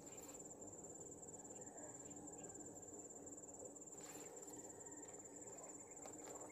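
Faint, steady high-pitched insect trill, cricket-like, with a few faint ticks over it.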